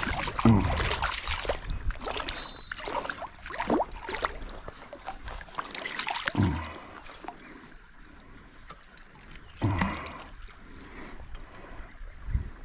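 Stream water trickling, broken by repeated splashes from a hooked trout thrashing at the surface as it is brought in; the splashing eases after about seven seconds, with one more splash near ten seconds.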